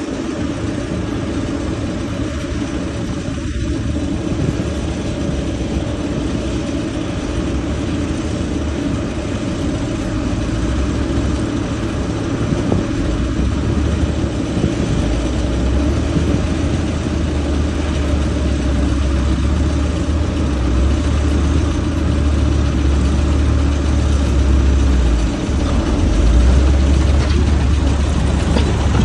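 Heavy construction machine's engine running steadily, its low rumble growing stronger over the second half.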